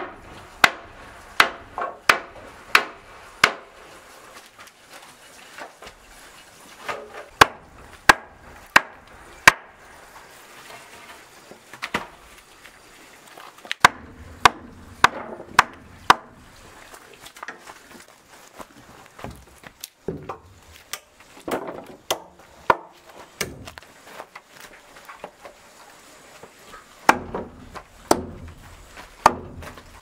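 Hammer blows on wood as a length of timber is hammered onto a wooden post. Sharp knocks come in bursts of four or five, with pauses of a few seconds between.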